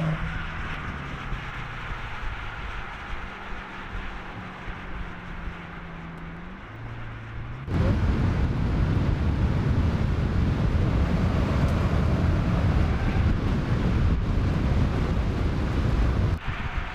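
2025 BMW M5's 4.4-litre V8 cruising with a steady engine note that steps down in pitch about seven seconds in. About eight seconds in, a sudden loud rumble of wind and road noise takes over and falls away near the end.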